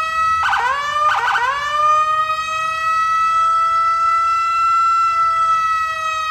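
Police siren: two quick rising whoops, then one long steady tone.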